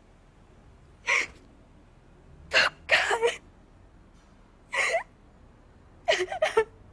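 A woman crying, with short gasping sobs in uneven bursts and three quick ones in a row near the end.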